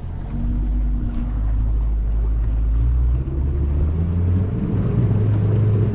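Boat's outboard motor running under way, with a low wind rumble on the microphone; the motor's note rises a little about three seconds in.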